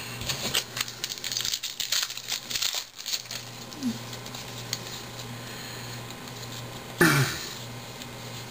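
Foil wrapper of a Topps baseball card pack crinkling and tearing as it is handled and opened, a dense crackle for the first three seconds or so. Then the quieter flick and slide of trading cards being shuffled by hand, with a short loud sound falling in pitch about seven seconds in.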